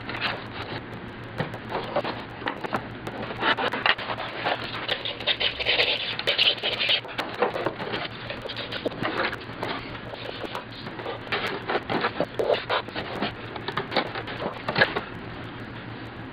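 Western red cedar strips scraping and rubbing against each other, with many short clicks and knocks, as a tapered strip is shaved and test-fitted into the kayak deck. The scraping comes in uneven strokes, thickest a few seconds in.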